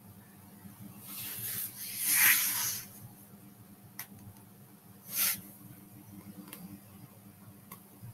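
Two short hissing noise bursts close to the microphone: the first lasts over a second and peaks about two seconds in, the second is brief, a few seconds later. A few faint clicks fall between and after them.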